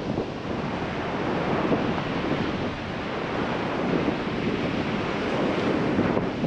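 Atlantic surf breaking and washing up a sandy beach, a continuous rushing wash that swells and eases. Wind buffets the microphone, adding a low rumble.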